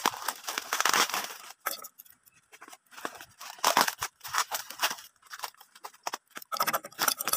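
Thick plastic packaging wrap crinkling and rustling in irregular bursts as it is pulled and torn open around a boxed item.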